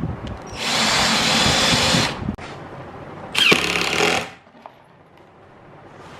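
Cordless drill boring into plywood in two bursts, the first about a second and a half long and the second about a second, the motor whining up in pitch at the start of the second.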